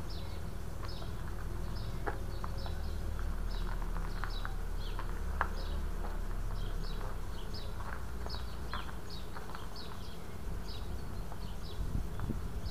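Small birds chirping: short, high, down-slurred calls repeating about twice a second over a steady low rumble.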